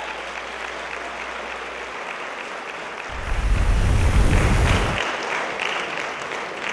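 Audience applauding. From about three to five seconds in, a loud, deep rumbling whoosh sound effect goes with a burst-of-flames transition, then the applause carries on fading.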